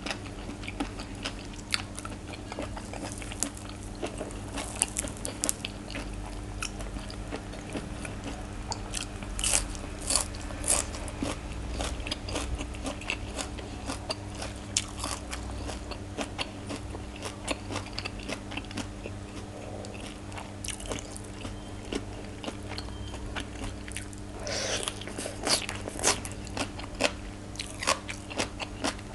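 Close-miked crisp crunching bites and wet chewing of raw shrimp som tam with fresh vegetables, in uneven runs of sharp crunches that are loudest about ten seconds in and again near the end. A steady faint hum runs underneath.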